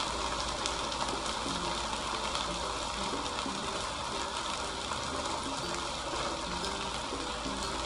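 Pork chops frying in hot oil in a wok: a steady sizzle.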